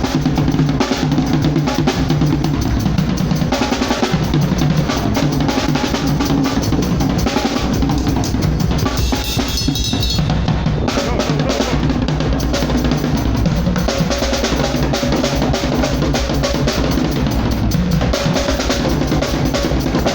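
A drum kit played continuously, with bass drum and snare hits and fills.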